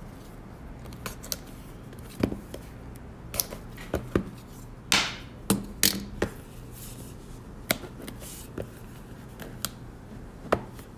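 Hockey trading cards and their packaging being opened and handled: scattered clicks and crinkles, with a short rip about five seconds in.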